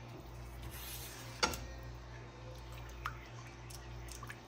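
A spoon stirring a thick cream sauce in a nonstick frying pan, with soft wet squishing. There is a sharp click about a second and a half in and a fainter one about three seconds in, over a low steady hum.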